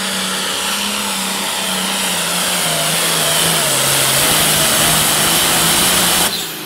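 Turbocharged diesel engine of a Farmall 1206 hot farm pulling tractor running flat out under load while pulling the sled, its note wavering and stepping in pitch over a loud high hiss and growing louder. Near the end the sound drops off abruptly as the pull ends.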